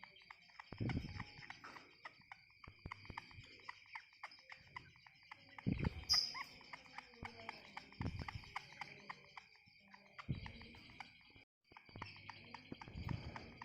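Caged songbird giving many short, quick chirps over a steady high-pitched insect-like drone, with a few dull thumps scattered through.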